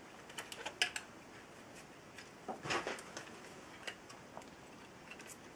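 Scattered light clicks and taps of a 2.5-inch hard drive in its sheet-metal bracket being handled by hand, with a couple of louder clicks about a second in and near the middle.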